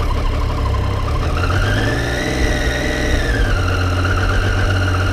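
Triumph Street Triple 675R's inline-three engine on its stock exhaust, revved up from idle about a second in and then held steady at about 2000 RPM, easing back slightly after about three seconds.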